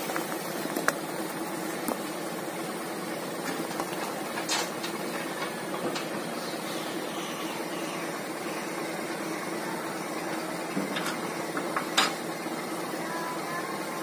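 Dump truck's engine running steadily while its bed is tipped to unload sand, with a few sharp knocks, the loudest near the end.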